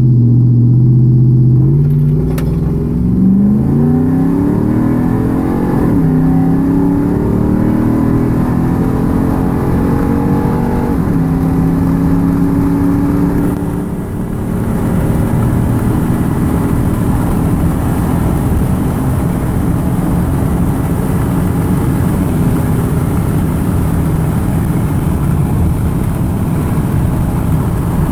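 Car engine with a leaking exhaust manifold pulling through the gears. Its note holds steady, then climbs and drops at a gear change about six seconds in. It climbs more slowly and drops again at about eleven seconds, then runs on steadily. The owner says the worsening manifold leak is costing power, with none in second gear.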